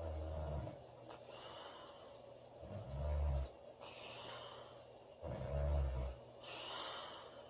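A woman snoring: three loud, low snores about two and a half seconds apart, with a breathy rush of air between them.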